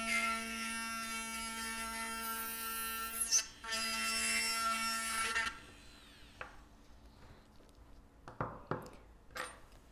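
Electric dental handpiece spinning a bur, grinding down a plastic screw cap to crown level on a temporary restoration: a steady high whine that dips briefly midway and stops about five and a half seconds in. A few faint clicks follow near the end.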